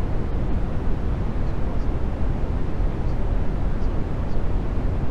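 Steady rushing noise, heaviest in the low end, with no breaks or changes in level; a few faint short high chirps sit on top of it.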